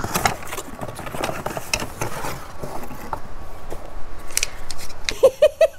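Rustling, scraping and clicking of a cardboard box being opened and bamboo utensils handled inside it. Near the end come a few short, evenly spaced pitched tones.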